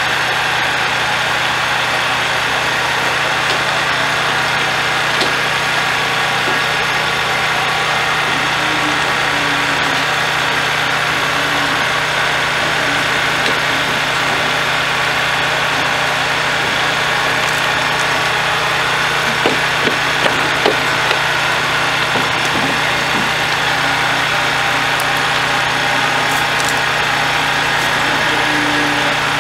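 Heavy haulage vehicle's diesel engine running steadily as the multi-axle low-loader creeps forward, with a few light knocks about two-thirds of the way through.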